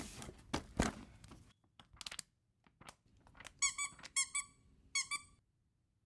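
Books knocked and shuffled on a shelf. About three and a half seconds in, three pairs of short, high squeaks.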